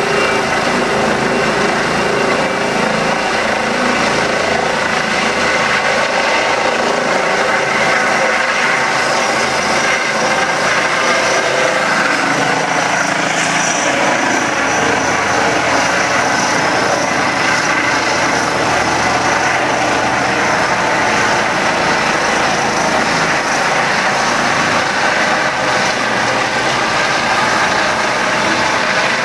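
Helicopter with its turbine engine and rotor running at full power: a loud, steady whine over the rotor noise as it sits on the ground, then lifts off and climbs.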